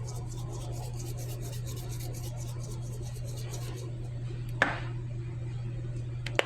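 Table salt being shaken from a shaker in a rhythmic rasp, about four shakes a second, stopping about four seconds in; then two sharp knocks.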